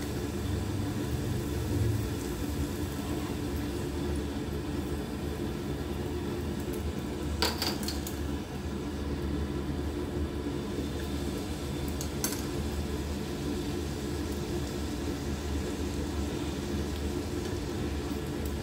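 Puris deep-frying in a small pan of hot oil: a steady sizzle over a low, even hum. Two sharp taps come about 7 and 12 seconds in.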